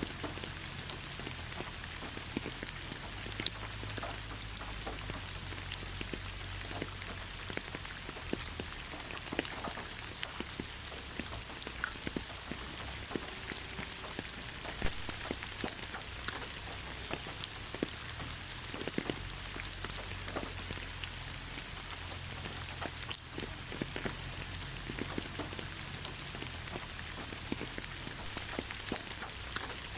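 Steady rainfall: a constant hiss with many separate raindrops striking a surface, over a low rumble.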